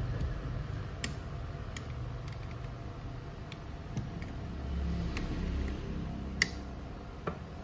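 Hands and a screwdriver working on the metal frame of a copier fuser unit: about half a dozen scattered light clicks and taps, the sharpest about six seconds in, over a low steady hum.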